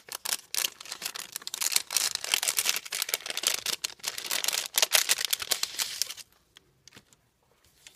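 Translucent paper envelope crinkling and rustling as it is carefully opened and the paper die-cut ephemera pieces are slid out. The sound stops abruptly about six seconds in, leaving only a few faint paper ticks.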